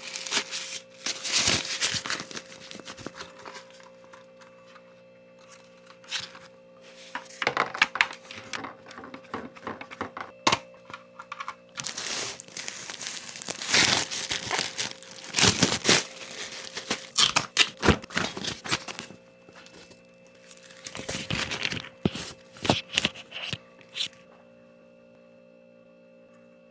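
Packaging being torn and crinkled by hand, in irregular spells with sharp clicks and knocks between them, stopping about 24 seconds in.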